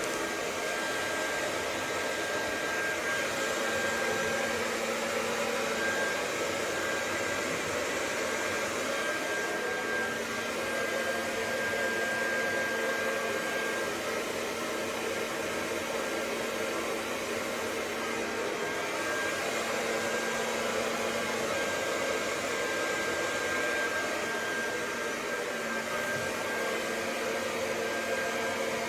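Hair dryer running steadily: an even rush of air with a low hum and a thin high whine.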